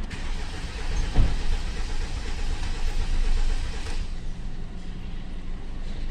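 A car engine making a steady mechanical noise with a regular pulse, and one sharp knock about a second in.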